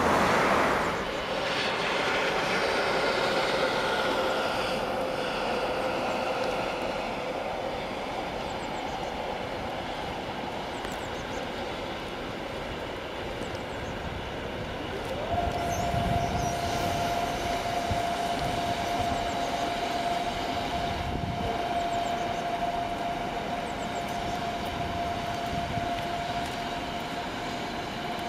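Train hauled by Siemens ES64 electric locomotives running past, with wheels rumbling on the rails and a steady electric whine from the locomotives. The whine fades over the first several seconds, then about halfway through a new, higher whine starts and holds, with a few heavier rumbles just after.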